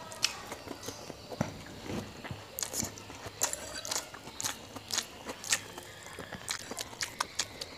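A person chewing close to the microphone, biting into a tomato slice and chewing fried noodles, with many short, sharp, irregular wet mouth clicks and smacks.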